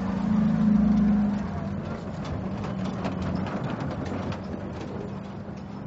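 Motor of a small rubber-tyred tourist road train humming steadily as it passes close by, loudest about a second in and then easing off. Light clicks and knocks follow as its open carriages go past.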